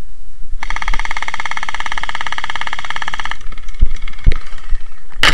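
Electric gel blaster firing a full-auto burst lasting nearly three seconds: a fast, even buzz from the motor and gearbox that starts and stops abruptly. Two dull thumps follow, then a sharp click near the end.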